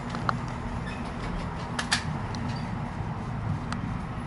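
Low, steady rumble inside a W8-class Melbourne tram, with a few sharp clicks and creaks from the car body.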